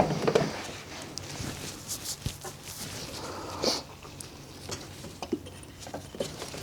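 Scattered clicks, taps and rubbing of hands working the oil filter housing cap, with the new cartridge filter clipped in, back into place on the engine.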